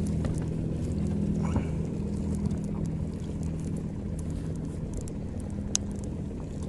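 A steady low engine hum, typical of a boat motor running nearby, with a few faint scattered clicks over it.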